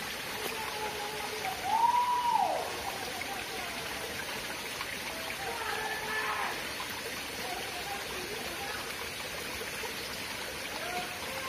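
Small shallow stream trickling and flowing over rocks, a steady water sound. About two seconds in, a short rising-then-falling call briefly rises above it, with fainter calls around the middle.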